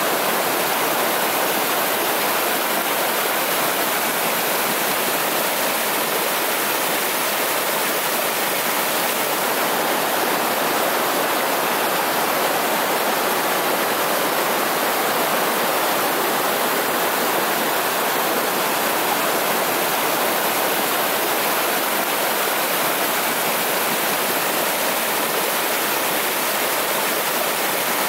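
A shallow, rocky mountain river rushing over and around boulders: a steady rush of water.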